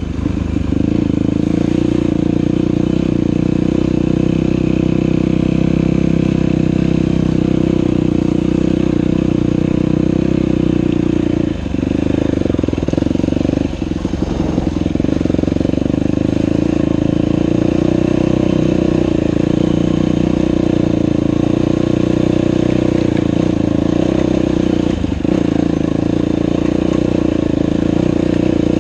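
Dirt bike engine running steadily as the bike rides along a trail, its note dipping briefly a few times in the middle and once near the end.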